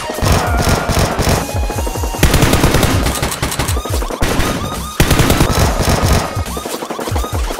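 Rapid automatic gunfire sound effects in long bursts, with a fresh burst starting about two seconds in and again about five seconds in.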